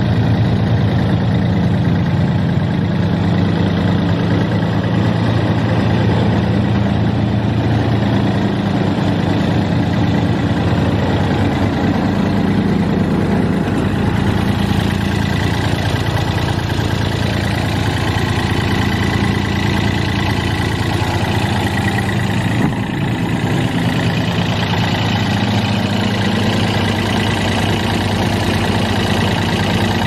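Daihatsu water-cooled diesel engine of a GreenMech wood chipper running steadily.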